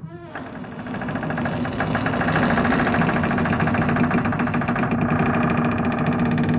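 Horror sound effect: a low, rapidly pulsing, distorted ghostly sound that swells over the first two seconds and then holds steady.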